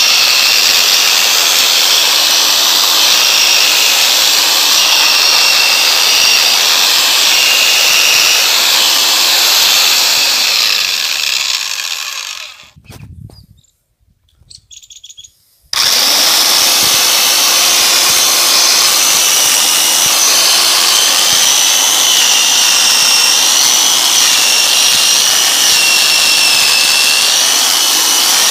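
Electric chainsaw cutting through a log: a loud, steady motor whine with the chain tearing through wood. About halfway through the sound dies away to a short near-silence, then starts again suddenly and the saw carries on cutting.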